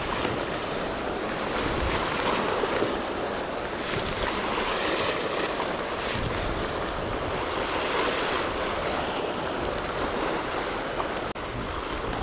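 Sea surf washing steadily against a rocky shore, with wind on the microphone.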